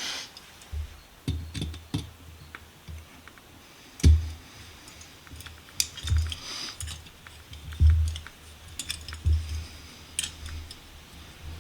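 Small metal clicks and ticks of an Allen key turning a set screw into a cast vise, with dull knocks every second or two as the work is handled.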